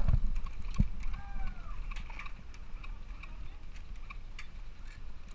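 Low rumble of wind on the microphone, with a few faint scattered clicks and a short faint whistling glide about a second in.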